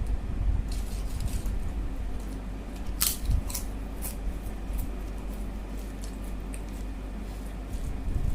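Eating sounds from a meal of rice and egg curry: a scatter of short, sharp mouth clicks and smacks while chewing, the loudest about three seconds in, over a steady low hum.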